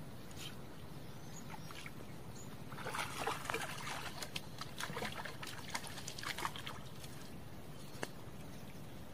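Hooked fish thrashing at the surface of the water, splashing in a burst of short crackles that lasts about three and a half seconds from around three seconds in. A single small click near the end.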